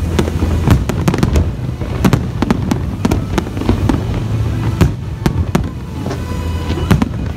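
Fireworks bursting in quick, irregular succession, with many sharp bangs and crackles.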